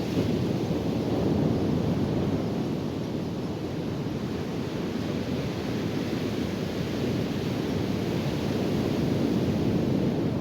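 Ocean surf breaking on the beach, a steady low rushing noise, mixed with wind blowing on the microphone.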